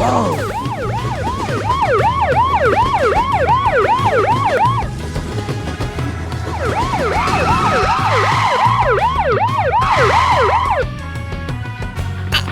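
Cartoon siren sound effect, a pitch rising and falling about twice a second, over background music. It breaks off about five seconds in, comes back a second and a half later with some held tones added, and stops shortly before the end.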